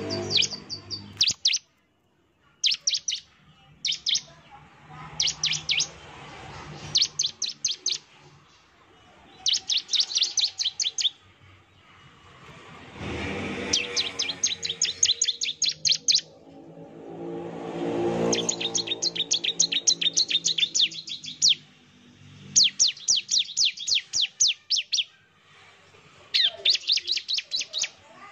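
Bar-winged prinia (ciblek) singing in repeated bursts of rapid, high, evenly spaced notes, each burst lasting about half a second to two seconds. This fast 'nembak' song is the kind played as a lure call to provoke other ciblek to answer. A low hum swells and fades in the background around the middle.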